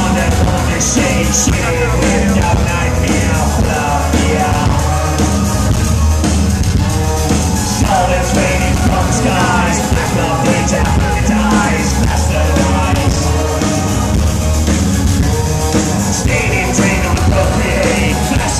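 Industrial band playing live, heard from the crowd: a loud, bass-heavy electronic backing with a singer's vocals over it.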